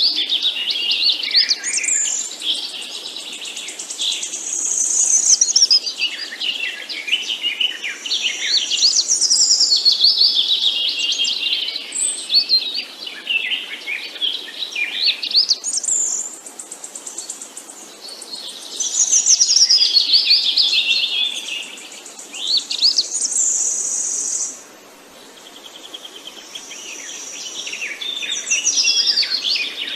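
Songbirds chirping and singing together: a dense chorus of quick high trills and whistles, thinning briefly about five sixths of the way through before picking up again.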